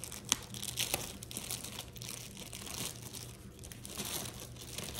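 Plastic packaging crinkling and rustling in irregular bursts as it is handled and pulled at, with a sharp click about a third of a second in.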